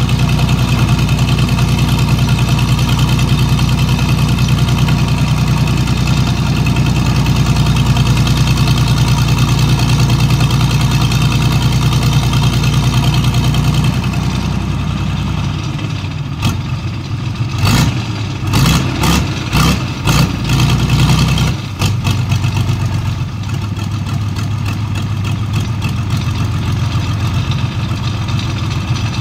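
Engines of a mud-suction dredge pontoon and an excavator running steadily. About halfway through the sound thins out, and a run of knocks with uneven loudness follows for several seconds before it settles back into steady, slightly quieter running.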